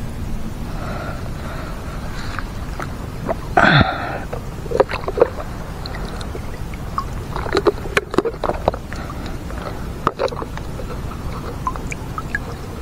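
Water sloshing and gurgling close to the microphone while fishing gear is handled, with scattered small clicks and knocks. A short vocal sound falling in pitch about three and a half seconds in is the loudest thing.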